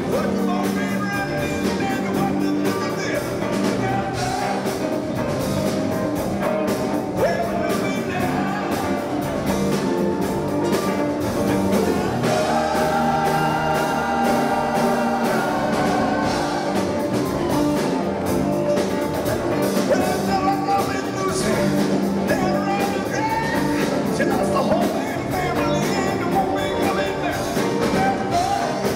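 Rock band playing live through a PA: electric guitars and drums with a lead vocal.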